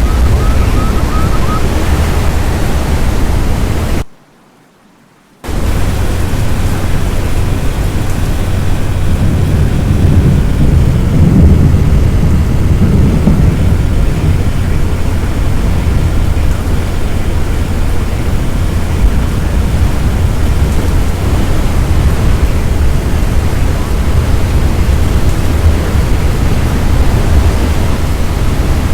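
Strong storm wind buffeting the microphone: a loud, steady rush with a heavy low rumble. It cuts out for about a second and a half about four seconds in.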